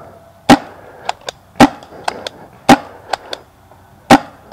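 Pump-action paintball marker, a CCI Phantom, firing four loud shots about a second apart, with fainter pops and clicks between them.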